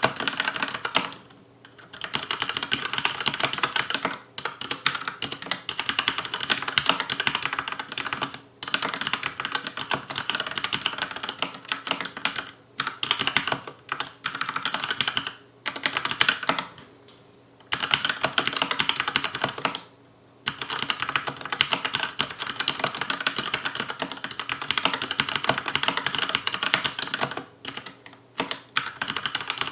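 Fast touch typing on a Logicool K835 TKL mechanical keyboard with TTC linear red switches and an aluminium plate: a dense, continuous clatter of keystrokes. The typing stops briefly several times, for about a second at most.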